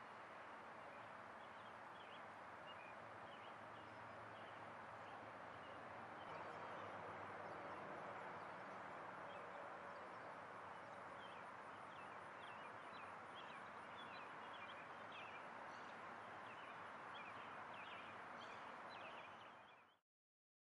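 Faint outdoor ambience: a steady hiss with frequent short bird chirps, cutting off suddenly near the end.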